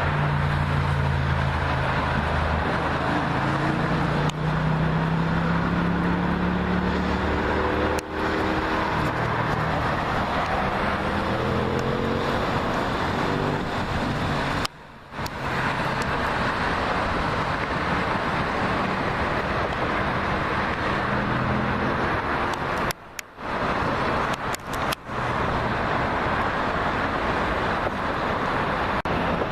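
Steady road traffic noise from a busy highway, with a vehicle engine rising in pitch as it accelerates during the first several seconds and again briefly later. The sound cuts out abruptly for a moment twice.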